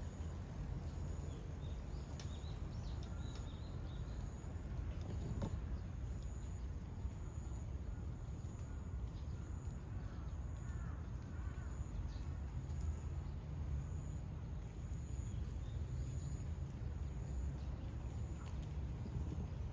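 Steady low outdoor background rumble, with faint short chirps and a faint, evenly repeated high tone above it.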